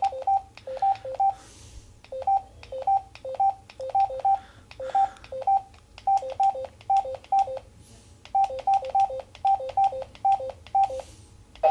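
Yaesu FTM-350 transceiver giving short electronic beeps in quick runs, several a second with short pauses between runs, as its frequency dial is stepped across the 2-metre band.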